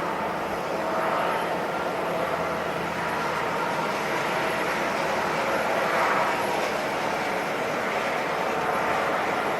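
Jet airliner engines running, a steady rushing noise with faint steady tones.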